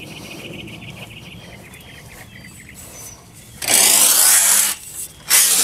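Birds chirping, then two loud bursts of a power tool running, each about a second long, one starting around three and a half seconds in and the second near the end.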